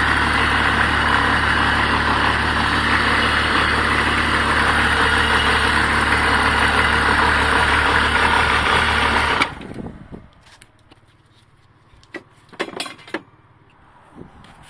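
BMW M51 2.5-litre six-cylinder turbo-diesel running steadily, then shutting off abruptly about nine and a half seconds in. A few light knocks and rattles follow.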